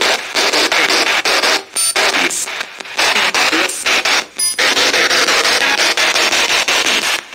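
Spirit box radio scanner sweeping through stations, played through a JBL Bluetooth speaker. A loud hiss of static is chopped into clicks several times a second as it jumps from station to station, with a few brief dropouts.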